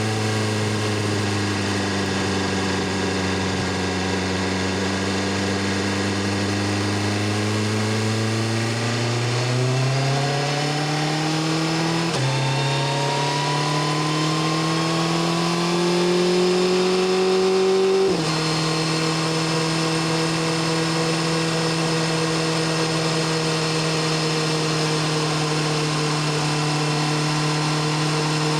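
BMW S1000RR sport bike's inline-four engine and exhaust under way. It runs steady at first, then the pitch rises as it accelerates, dropping sharply at two upshifts, before it settles back to a steady cruise.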